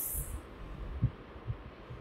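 Soft low thuds and handling noise from a saree's pallu being lifted, shaken out and draped, with a brief hiss at the start.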